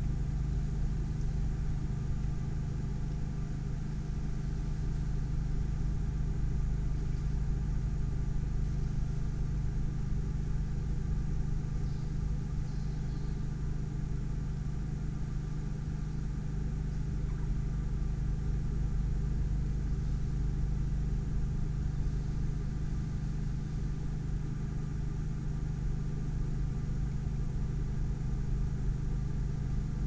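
A steady low rumble with a constant hum.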